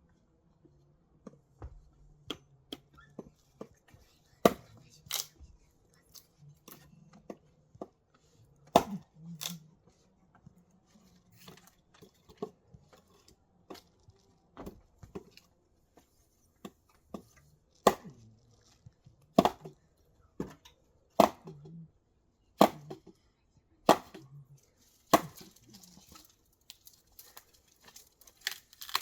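A series of sharp knocks and light clatter. They come irregularly at first, then settle into steady strikes about every second and a half in the second half.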